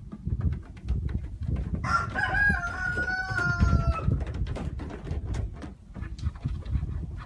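A rooster crows once, starting about two seconds in and lasting about two seconds, its pitch sagging slightly toward the end. A low rumble with scattered knocks runs underneath.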